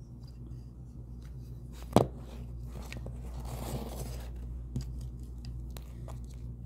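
Hands handling in-ear monitors, their metal case and cable, over a steady low hum. A single sharp knock comes about two seconds in, then a second or so of rustling and a few light clicks as the coiled cable is lifted out and handled.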